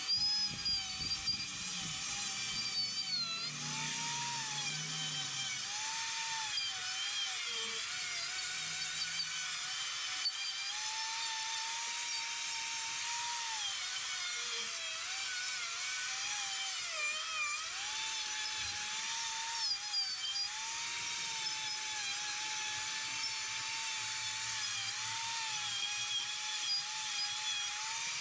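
Die grinder running at high speed with a Saburrtooth carbide flame bit carving into wood: a steady high whine whose pitch dips and wavers as the bit bites in and eases off.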